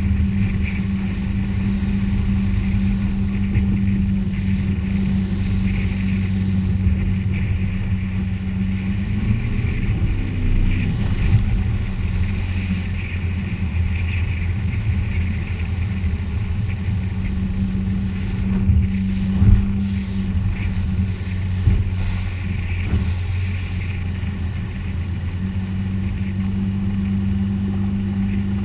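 Inboard motorboat engine running steadily under way, heard from on board over the rush of wind and water; the engine note rises briefly about a third of the way in, and a few louder knocks come about two-thirds of the way through.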